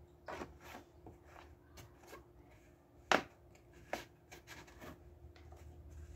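Light clicks and knocks of a plastic oil jug and a plastic funnel being handled, with one sharper knock about three seconds in and another a second later.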